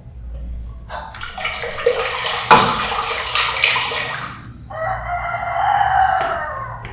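A rooster crowing: one long call in the last two seconds. It follows a few seconds of loud rushing, splashing-like noise.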